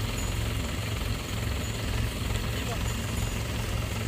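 Mahindra tractor's diesel engine running steadily at low revs, a constant low pulsing drone.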